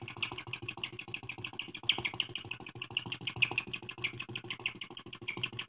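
Small brass flame eater (flame licker) engine running steadily once warmed up, with a fast even ticking of about ten beats a second over a low hum.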